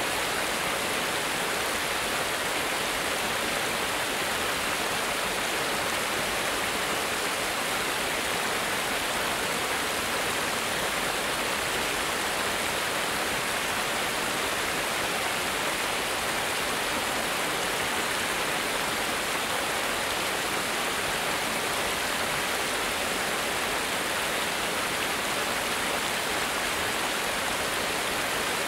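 Water of a small stream cascade rushing steadily: an even, unbroken hiss of falling and flowing water.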